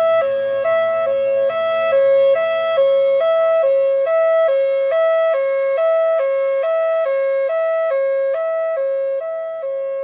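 Federal Signal Thunderbolt 1003 outdoor warning siren sounding its hi-lo fire signal: two pitches alternating evenly, a little more than twice a second each. It gets quieter near the end.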